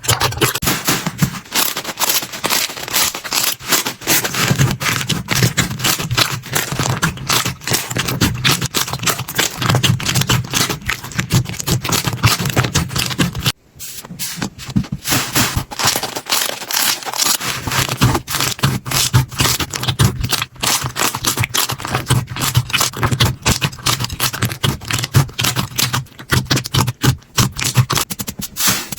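Slime squeezed and worked by hands: a dense, steady run of crackles and pops, with a brief break about halfway through.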